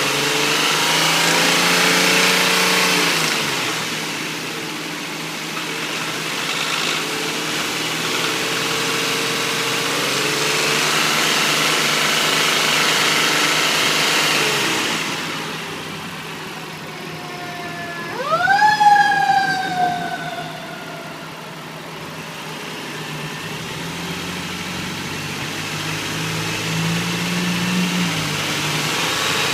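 2004 Infiniti I35's 3.5-litre V6, which the owner says is knocking, revved up and let back down toward idle several times. About 18 seconds in, a loud whooping tone sweeps quickly up and then slides slowly down.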